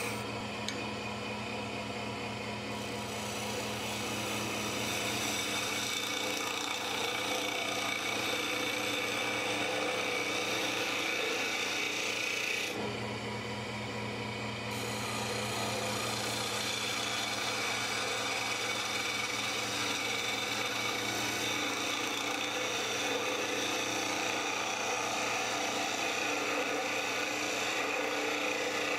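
Wood lathe running while a hand-held turning tool cuts green arbutus, a steady scraping of wood shavings over the lathe's hum. The cutting noise drops away for about two seconds near the middle, then resumes.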